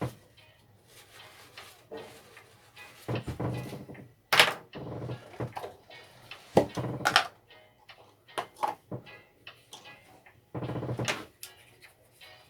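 Background song music, with occasional knocks and clicks of parts being handled.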